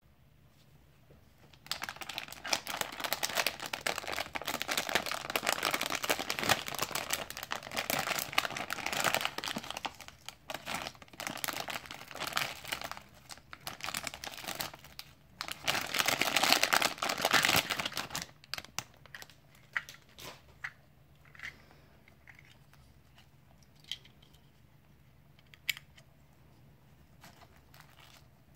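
Thin clear plastic bag crinkling as it is handled and opened, a dense crackle that starts about two seconds in and stops about two-thirds of the way through; after that, only a few scattered light clicks.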